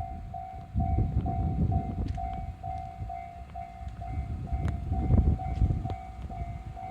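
Level crossing alarm ringing a steady electronic tone about twice a second. Under it, a train rumbles over the crossing with scattered wheel clicks.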